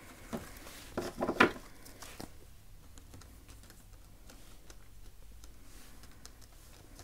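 Oracle cards being dealt onto a desk: a cluster of sharp taps and slaps of card on the tabletop about a second in, then faint ticks and soft sliding as more cards are laid down.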